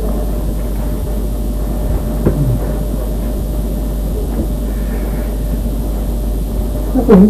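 Steady low hum under a constant noisy rumble, with a short louder sound near the end.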